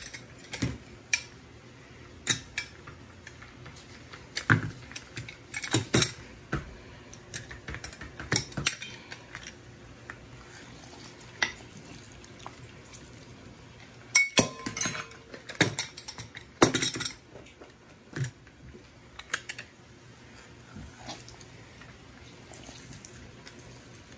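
Hand-held citrus squeezer pressing lime over a stone molcajete: scattered clicks and knocks as it is worked and bumps the bowl, busier about five seconds in and again around fifteen seconds.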